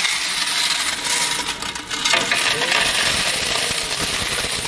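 A stream of quarters pours out of a collection box into the black plastic tray of a digital coin-counting scale, making a loud, continuous jingling clatter.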